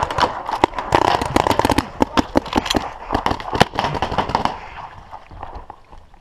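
Paintball markers firing rapid, irregular volleys of sharp pops, thinning out after about four and a half seconds.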